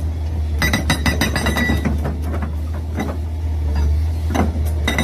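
Toy breaker excavator being handled: irregular clicks, knocks and light clinking of hard toy parts over a steady low hum.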